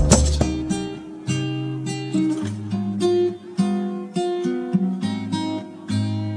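Background music: an acoustic guitar playing a slow line of plucked and strummed notes, opening with one loud beat.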